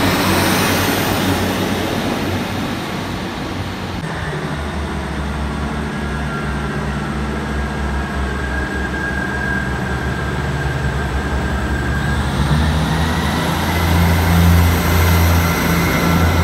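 Diesel multiple-unit trains at station platforms. First a Class 150 unit pulls away with a noisy rush. Then a deep steady diesel engine drone with faint whines above it, and about 12 s in a whine rises in pitch as the engine noise grows louder with a train moving off.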